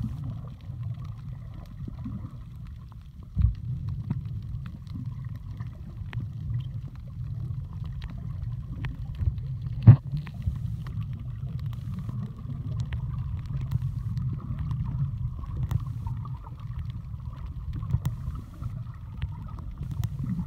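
Underwater recording: a steady low rumble of moving water with a faint steady hum above it and scattered small clicks. Two sharp knocks stand out, a small one a few seconds in and a louder one about ten seconds in.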